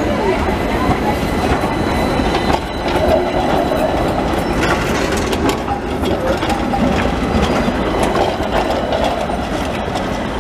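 Milan street trams, a vintage Class 1500 'Peter Witt' car and a modern Sirietto, rolling past close by with a steady rumble of steel wheels on street track. A run of sharp clicks about two to five seconds in as the wheels cross rail joints and switches.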